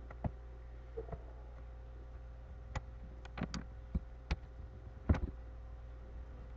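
Handling of a paper booklet's pages: scattered light clicks and taps, the loudest about five seconds in, over a steady low hum.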